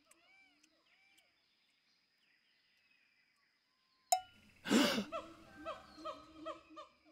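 Cartoon monkey voice hooting: a few fading hoots at the start, a quiet pause, then after a sharp click a loud cry and a quick run of hoots, two or three a second.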